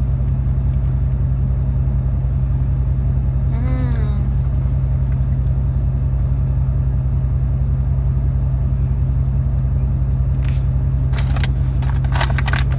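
Steady low rumble of a car's idling engine heard from inside the cabin. A short hum of a voice about four seconds in, and a few brief crackles near the end.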